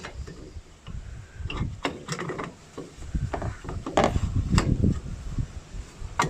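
Irregular sharp clicks and knocks with dull bumps and rubbing: hands working on the plastic parts and clips of a washing machine being taken apart.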